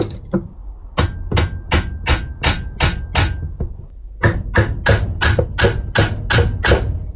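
Light mallet blows on a turbocharger's turbine housing, knocking it loose from the cartridge (core), about three sharp strikes a second in two runs with a short pause in the middle.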